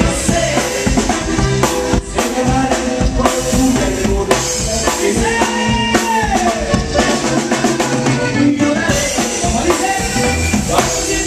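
Live Mexican regional band playing an instrumental passage over a steady drum kit beat with bass drum and snare. A held note bends up and then down around the middle.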